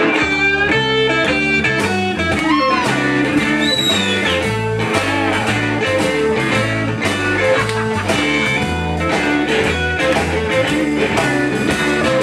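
A live blues band playing: electric guitar with bent notes over bass guitar and drums. The bass and drums come in right at the start.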